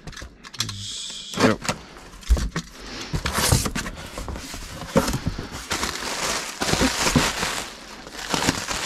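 A heavy cardboard box being opened and unpacked by hand: irregular knocks and clicks as containers are moved and set down, with stretches of cardboard and packaging rustling and tearing.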